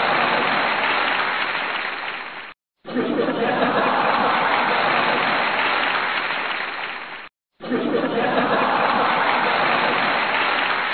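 An audience laughing, chattering and clapping, in bursts that swell up, fade and stop abruptly twice before starting again, as in a laugh track laid over each clip.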